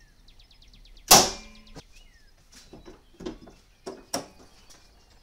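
A loud sharp metallic bang with a short ring about a second in, then several lighter clicks and knocks from the hood latch of a Toyota Sienna being worked by hand to open the hood. Birds chirp faintly in the background.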